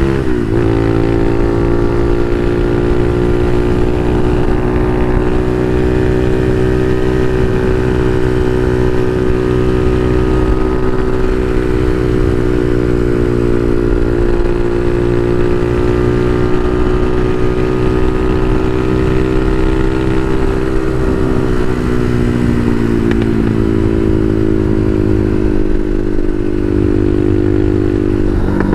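Bashan Motomax 250 supermoto engine running under way at a steady pace. The revs drop briefly at the start, as at a gear change, then hold. About twenty seconds in they ease down and settle at a lower steady pitch.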